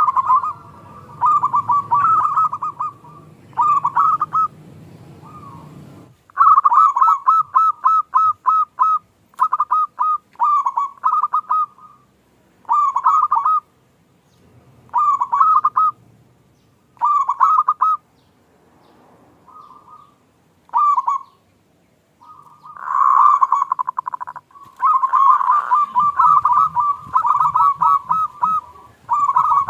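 Zebra doves (local perkutut) cooing: short runs of quick rolling coos, repeated in bursts a second or two long with gaps between them.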